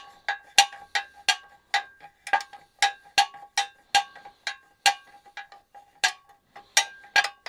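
Small 9/16 ratcheting wrench clicking in short back-and-forth strokes on a nut inside a sheet-metal soda dispenser housing, about three clicks a second. Each click sets the metal housing ringing briefly with a bell-like tone. The nut turns only a little with each stroke in the cramped space.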